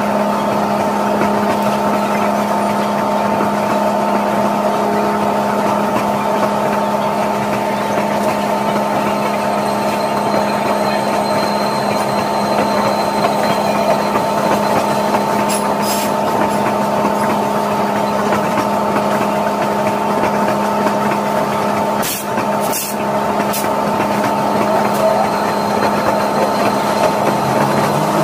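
Steady hum of a standing locomotive coupled to a coach, holding several tones without change. Late on there are a few short clicks.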